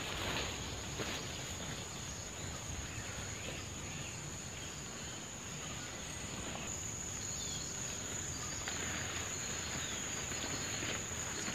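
Insects trilling in one steady, unbroken high-pitched tone. Faint rustling footsteps through the undergrowth come in during the last few seconds.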